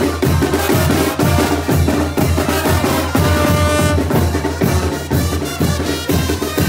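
Live banda brass band playing chinelo brinco dance music: a steady drum beat under the horns, with a long held note about three seconds in.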